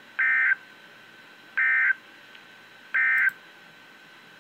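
Emergency Alert System end-of-message signal: three short, identical bursts of buzzy digital data tones (the SAME "NNNN" code), about a second and a half apart, marking the end of the alert. A faint steady tone runs beneath.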